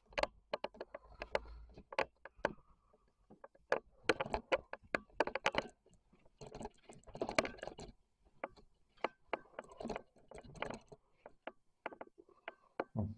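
Footsteps climbing stairs: a steady string of sharp knocks and scrapes, with denser scuffling bunches in places.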